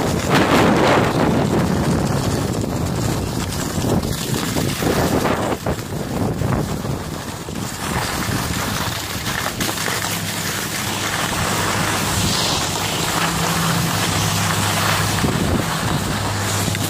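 Wind buffeting the microphone and skis sliding over hard-packed snow on a downhill run, loudest in the first few seconds. A steady low hum comes in about halfway through as the skier slows near the lift.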